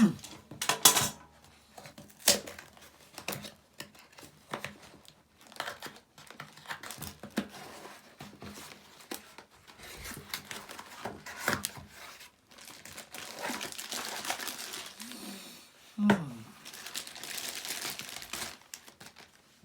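Packaging being opened by hand: cardboard and plastic wrapping crinkling and tearing, with scattered clicks and knocks of handling and a longer spell of crinkling near the end.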